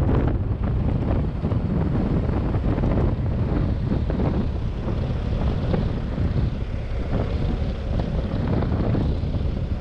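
Motorcycle engine running on the move, with wind noise on the microphone.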